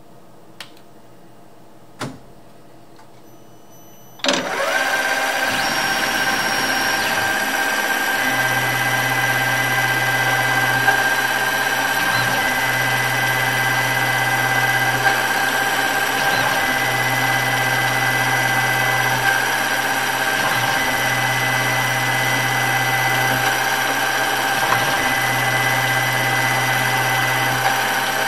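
Two light clicks, then a Tormach PCNC 770 mill's spindle starts about four seconds in and runs steadily with a Procunier auto-reversing tapping head, tapping small holes. A low hum switches on and off in a regular cycle of roughly four seconds over the spindle noise.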